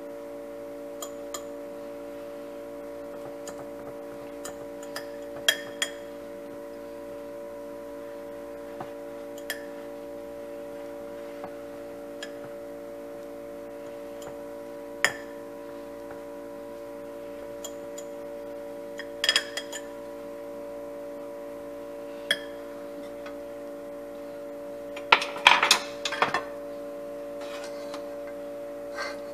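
Metal fork tapping and scraping against a glass dish while mashing boiled potatoes: scattered irregular clinks with a quick flurry of them near the end, over a steady hum.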